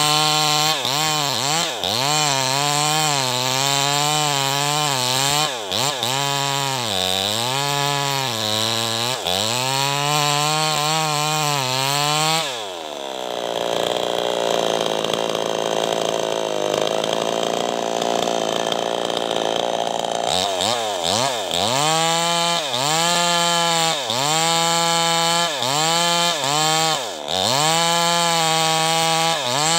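New West 588 two-stroke chainsaw cutting into the base of a teak trunk, its engine pitch rising and falling under the load of the cut. About twelve seconds in the revs drop and it runs slower and steadier for about eight seconds, then it revs back up and cuts again.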